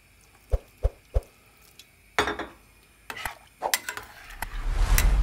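A metal ladle in a stainless steel pot of watery leek stew: three sharp knocks early in the first second and a half, then stirring with clinks against the pot, and a loud swelling slosh of the liquid near the end.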